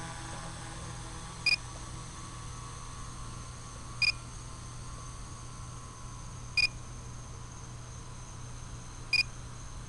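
A short, high electronic beep repeating about every two and a half seconds, four times, over a steady low hum.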